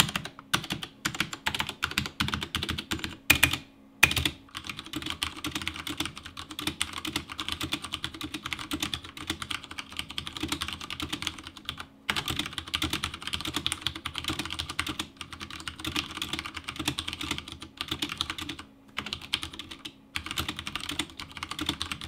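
Continuous typing on an Akko 3087 Ocean Star 87-key mechanical keyboard with Cherry MX Brown switches and PBT keycaps: a dense run of key clacks, with a few louder strikes in the first four seconds and brief pauses about 12 and 19 seconds in.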